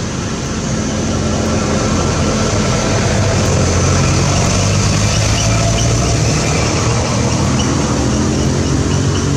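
An engine running steadily, a constant low drone that stays level throughout.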